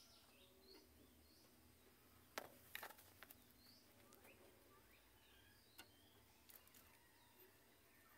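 Near silence: quiet room tone with faint bird chirps and a few soft clicks between about two and a half and three seconds in.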